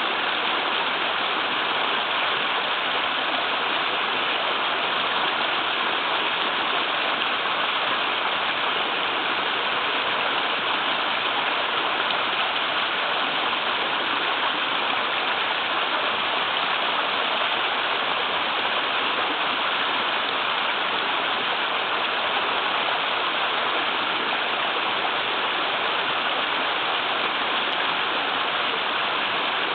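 Small waterfall on a river pouring heavily: a steady, even rush of splashing water.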